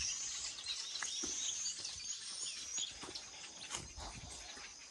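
Many small birds chirping and twittering together in a steady chorus, with a few faint knocks near the ground.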